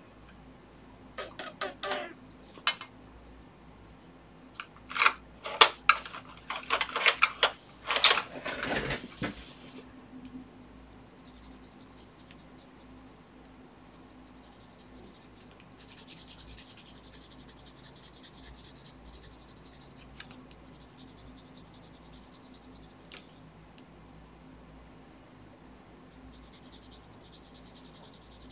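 Hard clicks and clatters for the first nine seconds or so as drawing supplies are handled. Then a red colored pencil scratches on the paper cover in short runs of strokes with pauses between them.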